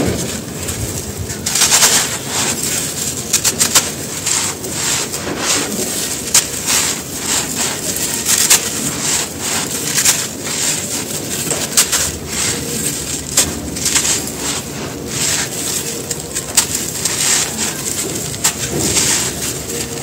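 Hands crushing and crumbling dry, dusty sand-cement shapes: crunching and crackling as the chunks break, with loose powder pouring onto a dry pile. Sharp crunches come irregularly, several close together near the start.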